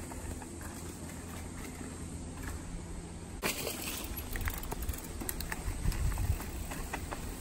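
Mountain bike riding on a dirt trail under a steady low rumble, with one sharp clack about three and a half seconds in, then scattered light clicks and low thumps as a rider sets off.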